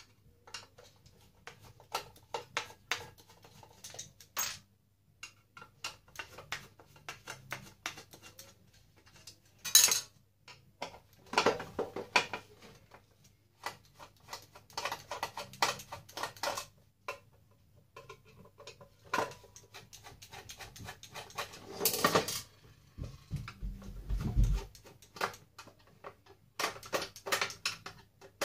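Screwdriver and loose metal parts clicking and clinking in irregular taps while screws are undone on the metal control box of an electric heat press. A low rumble comes in a few seconds before the end.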